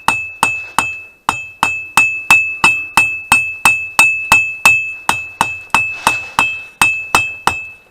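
Hand hammer striking hot steel on an anvil, about three blows a second with a ringing tone carried through every blow, pausing briefly about a second in and stopping near the end.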